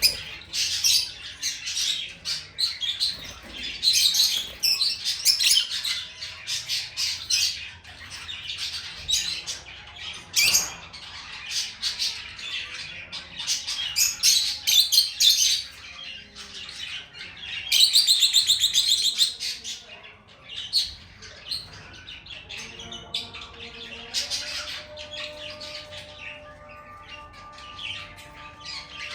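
Lovebird chirping in quick runs of short high-pitched notes, with a loud rapid buzzy trill about eighteen seconds in.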